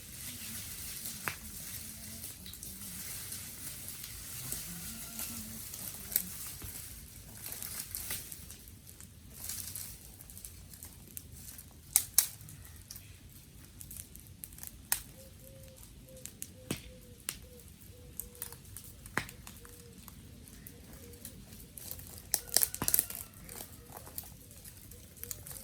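Wood fire of garden sticks crackling: a hiss with scattered sharp pops and snaps, two loud pops about halfway through and a quick cluster near the end.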